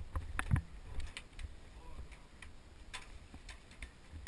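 Irregular light clicks and ticks, with a few louder knocks in the first second over a low rumble.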